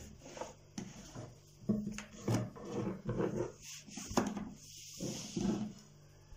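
A long, thin metal rolling pin (oklava) rolling back and forth under the palms over dough on a wooden board, in a series of uneven strokes with a few sharp knocks against the wood.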